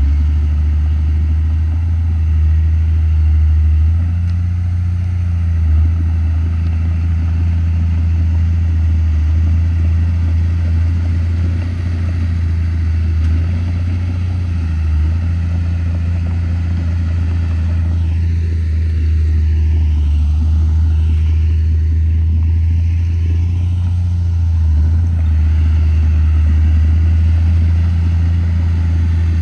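Komatsu D31P bulldozer's diesel engine running steadily under working load, a constant low drone whose note dips briefly a few times.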